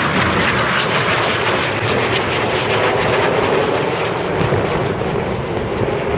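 Red Arrows BAE Hawk jets flying a display overhead: loud, steady jet-engine noise.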